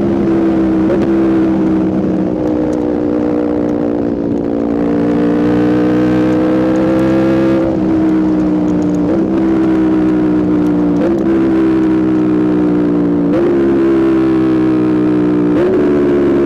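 Aprilia RSV4 V4 sport bike engine, through a Spark aftermarket exhaust, running under way at steady mid revs. The pitch rises slowly for a few seconds, then sags, with short upward jumps every couple of seconds near the end.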